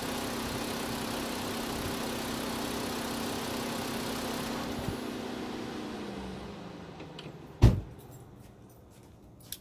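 Car engine idling steadily, then switched off about six seconds in, its hum sagging in pitch and dying away as it stops. A single sharp knock follows about a second and a half later.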